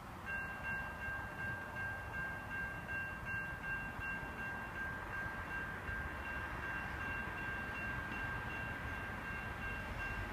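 Distant railroad warning sound: two steady high-pitched tones, slightly pulsing, held for about ten seconds, announcing an approaching freight train. Low rumble underneath.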